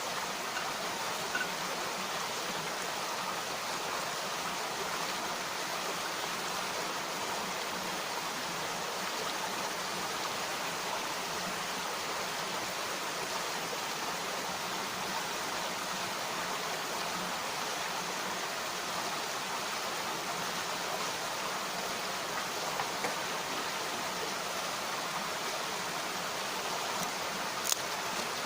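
Mountain stream rushing steadily over rocks, with a few short clicks, the sharpest near the end.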